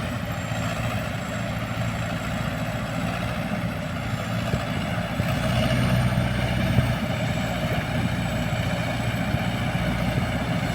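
Yenisei 1200 combine harvester's diesel engine running steadily just after being started, with a thin high whine above it; it runs evenly, which the owner judges normal.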